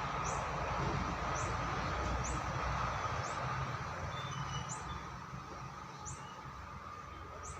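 Electric rickshaw drivetrain running: a steady whine over a low rumble, with short high chirps about once a second.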